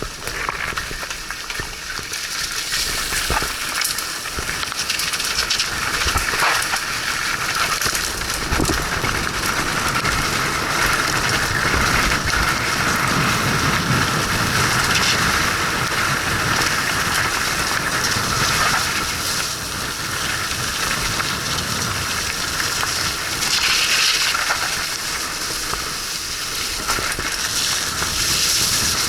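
Mountain bike tyres rolling through wet mud and gravel: a steady wet hiss and crackle, with scattered clicks and knocks from the bike over the rough trail.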